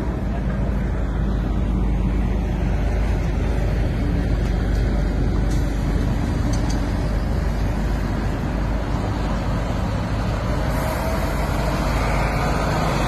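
Steady roadside traffic noise: vehicle engines running close by, with a heavy low rumble.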